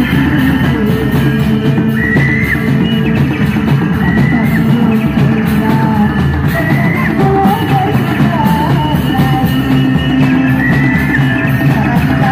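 Loud Indramayu reog folk music: drums keep a quick, even beat under low held tones and a high melody line that slides between notes.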